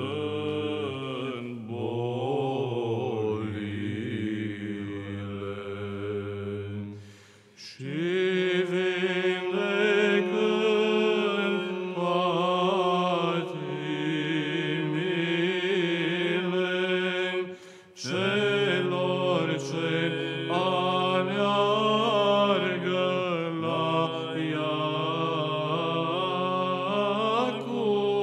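Romanian Orthodox Byzantine chant in the fifth tone, sung by two men: a melody line moving over a steady held drone (the ison). The singing breaks off briefly for breath about seven and eighteen seconds in.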